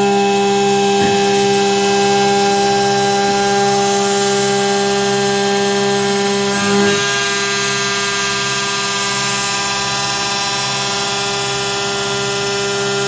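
Carvera Air desktop CNC mill cutting: a steady whine from the spindle and cutter, with the hiss of the air assist blowing the chips clear.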